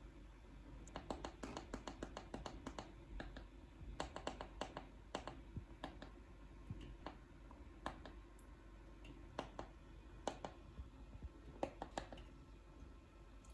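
Plastic buttons on a TV remote control clicking as they are pressed, sometimes singly and sometimes in quick runs of presses, while the TV menus are stepped through.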